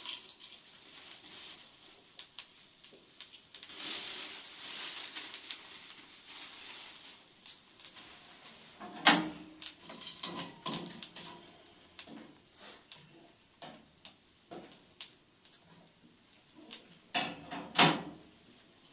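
Scattered knocks and clicks of objects being handled, with a loud knock about nine seconds in and two more near the end, and a brief rustle about four seconds in.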